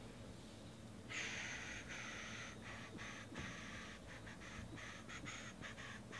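Trading cards rubbing and sliding against one another as a stack is handled and sorted, a soft, raspy rustle that starts about a second in and comes in short, broken strokes.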